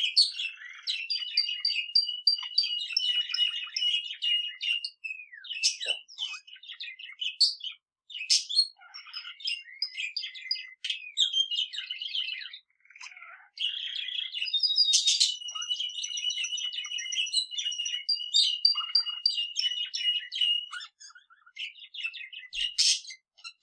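A male canary and a budgerigar singing together. There are two long, even trills lasting several seconds, one at the start and one from about the middle, set among quick chirps and warbling.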